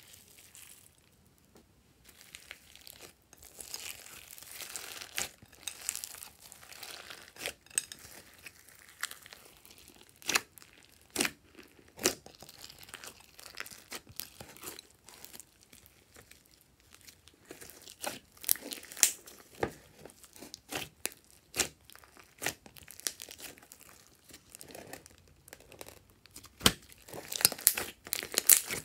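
Hands kneading and squeezing sticky fluffy slime mixed with clay and sequins, starting about two seconds in: wet, crackling, tearing sounds with many sharp little pops and clicks as the slime stretches and air pockets burst.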